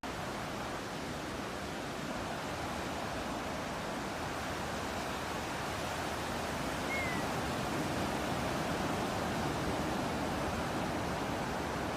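Steady rush of ocean surf and sea breeze that slowly grows louder, with a single short bird chirp about seven seconds in.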